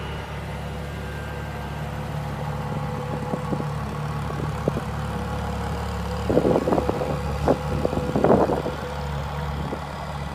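Ferrari LaFerrari Aperta's V12 idling steadily. After about six seconds, a few seconds of sharp, louder bursts cut through the idle.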